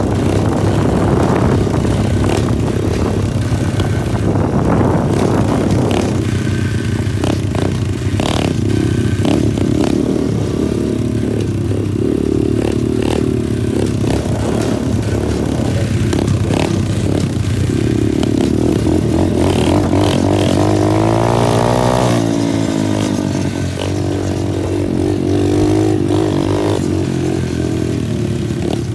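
120cc Honda-clone pit bike's single-cylinder four-stroke engine running under way, its pitch rising and falling with the throttle, with some mechanical clatter.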